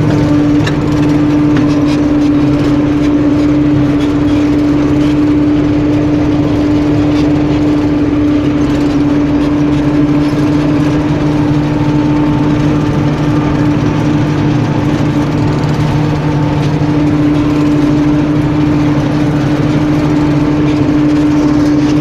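Harvest machinery engine running steadily at constant speed: a loud, even drone that holds the same pitch throughout.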